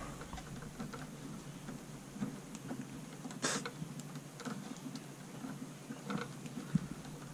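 Faint handling noise of stiff copper electrical wires and plastic wire nuts being twisted together: scattered small clicks and scrapes, the sharpest about three and a half seconds in.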